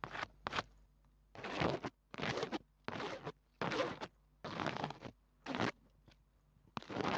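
Scratchy rubbing strokes right against a small microphone, about eight in a row, each lasting less than half a second, with short uneven gaps between them.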